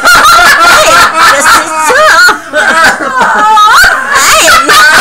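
People laughing loudly and at a high pitch, in a continuous run of laughter.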